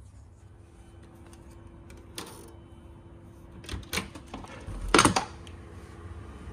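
A few sharp clicks and knocks, the loudest a cluster about five seconds in, over a steady low hum.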